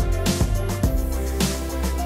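Background music with a steady beat, held bass notes and pitched instrument tones.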